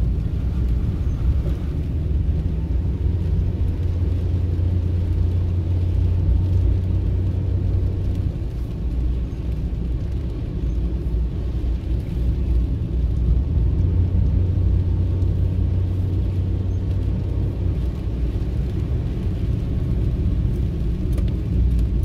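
Steady low rumble of a car being driven, heard from inside the cabin, with the hiss of tyres on a wet road.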